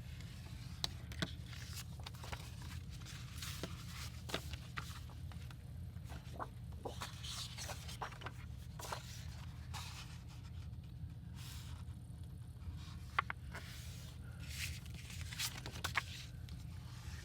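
Paper and craft materials handled on a work table: scattered rustles, short scrapes and small taps, over a steady low hum.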